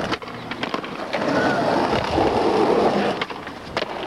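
Skateboard wheels rolling over rough asphalt, with several short sharp clacks of the board hitting the ground during flatground tricks.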